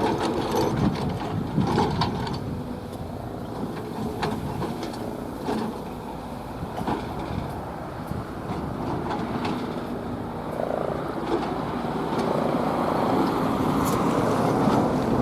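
Keihan 7200-series electric train running on the rails: a steady rumble with irregular clicks and knocks from the wheels, growing slightly louder over the last few seconds.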